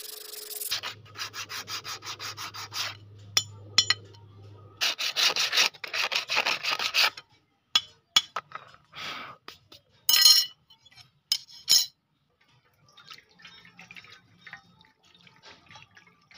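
Sandpaper rubbed back and forth over a rusty steel blade in quick strokes, about four or five a second, in several bursts, with a few sharp knocks between them. In the last few seconds only faint scrapes and clicks.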